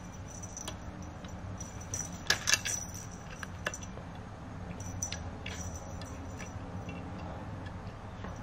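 A few light jingling clinks, the loudest pair about two and a half seconds in, over a low steady hum.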